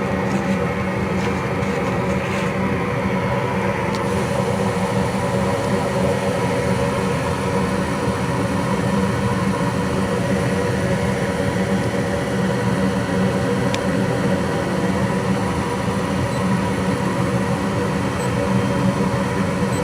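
Gas furnace running: a steady mechanical hum from its blower and inducer draft motors, with several steady tones.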